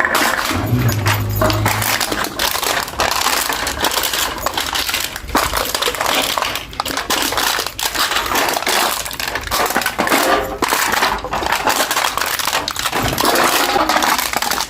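Aluminium beer can being crushed, the thin metal crinkling and crackling without a break, dense with small sharp clicks.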